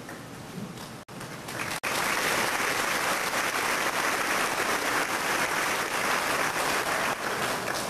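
Audience applauding. Steady clapping fills the hall from about two seconds in, after two brief dropouts, and starts to die down near the end.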